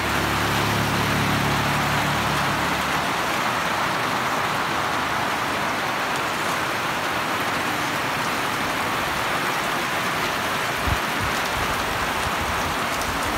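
Heavy rain pouring steadily onto a concrete road, grass and roofs, a continuous even hiss. A low rumble sits under it for the first three seconds.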